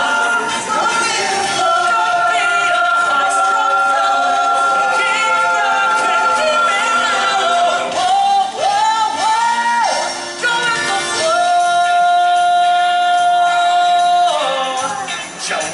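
Stage musical number: cast singing over loud backing music, with long held notes.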